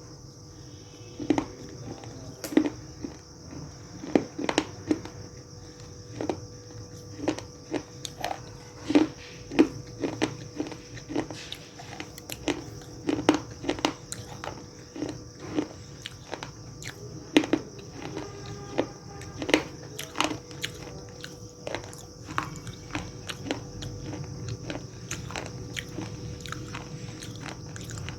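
Pieces of hard, crunchy edible clay being bitten and chewed up close: sharp, dry crunches come at irregular intervals, a second or so apart, over a steady high hiss.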